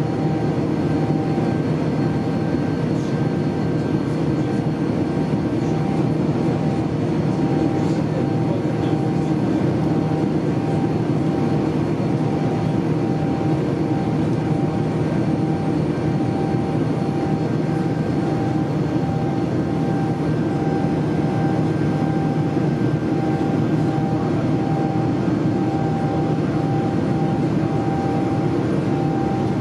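Steady cabin noise of a Boeing 787-9 Dreamliner in flight: a constant rush of air and engine sound with a few steady hums, unchanging throughout.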